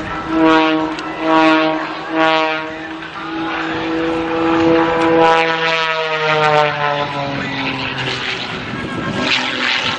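Propeller airplane's engine droning, swelling and fading about once a second at first, then holding a long note that slowly drops in pitch as the plane passes. A rough rushing noise comes in near the end.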